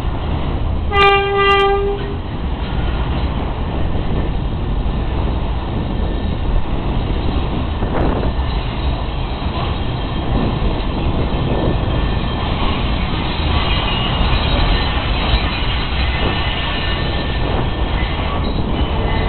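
New York City subway train giving a short horn toot about a second in, then the steady rumble and rattle of its cars rolling past on elevated track. A faint high wheel squeal comes in during the second half.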